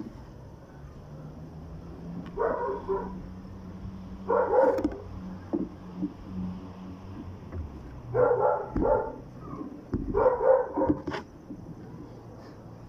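A dog barking in four short bouts of several barks each, with pauses between them.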